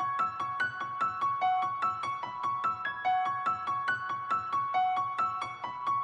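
Background music: a steady run of high piano-like keyboard notes, about five a second.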